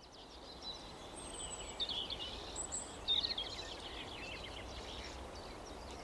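Several small birds chirping and twittering in quick runs of short notes, with a few thin high whistles, over a steady outdoor hiss that fades in at the start.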